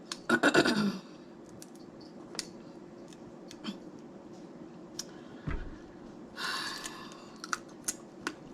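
Snow crab leg shells cracking and snapping as they are picked apart by hand, with scattered sharp clicks and two louder crackling bursts, one right at the start and one about six and a half seconds in.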